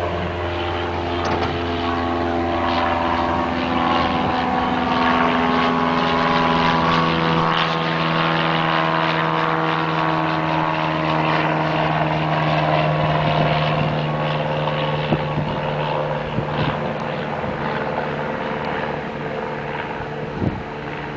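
Single-engine propeller plane flying low overhead, its engine and propeller drone growing loudest midway. Its pitch drops as the plane passes over, then the drone eases off slightly.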